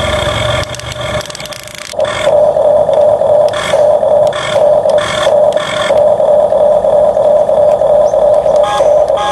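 A steady high motor whine, with a run of short scraping sounds between about two and six seconds in.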